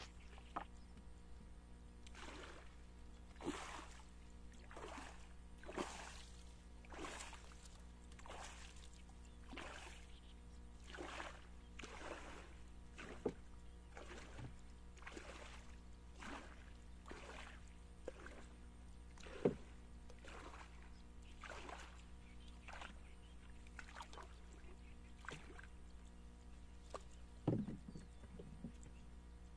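Rhythmic splashing of water, about one to two splashes a second, with a few sharper knocks, the strongest about 19 seconds in, and a low thump near the end.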